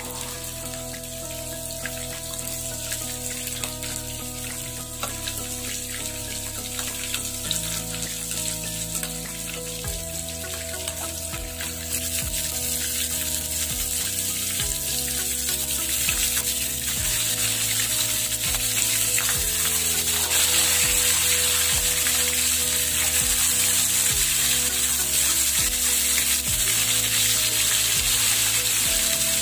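Tandoori-marinated fish pieces sizzling as they shallow-fry in oil in a pan, the sizzle growing louder about twelve seconds in.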